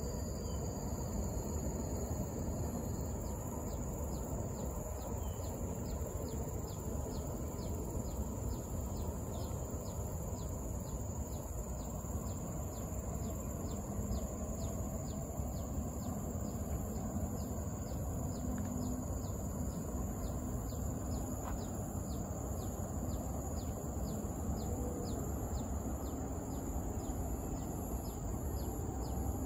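Steady high-pitched insect drone with a faint tick repeating about twice a second, over a low steady background noise.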